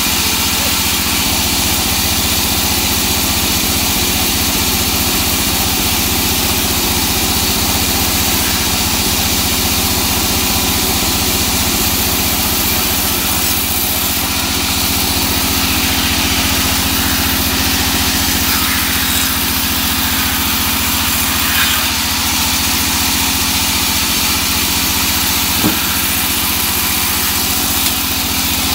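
Large vertical band saw running steadily while a teak log is fed through its blade, with a short knock near the end.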